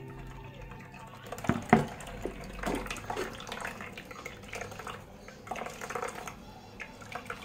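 Wet ground coconut being tipped from a mixer jar into a plastic strainer and squeezed by hand, coconut milk trickling into a steel pot, with irregular squelching and dripping. A couple of sharp knocks come about a second and a half in.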